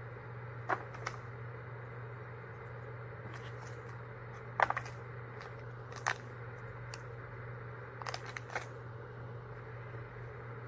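A bag and packaging being handled and unpacked by hand, giving scattered short crinkles and clicks, the loudest about four and a half seconds in and a quick cluster near the end, over a steady low hum.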